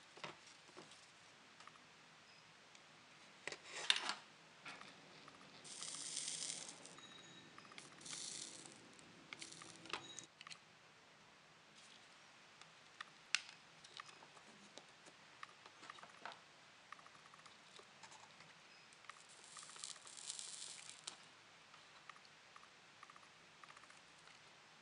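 Faint bench-work handling: scattered small clicks and taps from perfboard, wire links and tools being handled, with a few brief hissing rustles.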